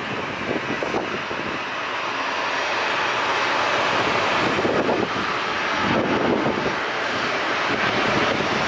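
Jet engines of a Boeing 737 airliner on final approach with its gear down: a steady rushing drone that grows gradually louder as the plane comes closer.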